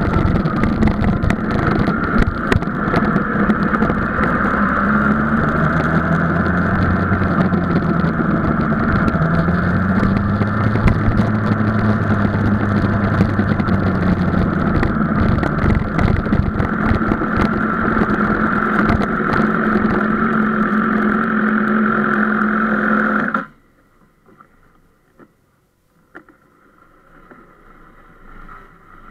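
Sport motorcycle engine running steadily at low revs as the bike rolls slowly, its pitch rising and falling a little partway through. It is switched off abruptly about three quarters of the way in.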